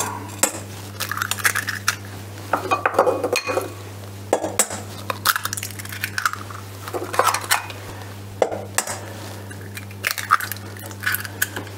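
Eggs being cracked one after another on the rim of a stainless steel mixing bowl: a string of sharp taps and clinks, some with a brief metallic ring, as shells break and the eggs drop into the bowl. A steady low hum runs underneath.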